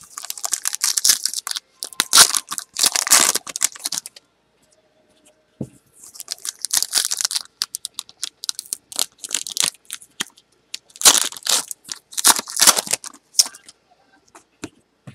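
Foil trading-card packs of 2012 Panini Prizm Baseball being torn open and crinkled by hand. The sound comes in several bursts of rustling, with a short pause about four seconds in.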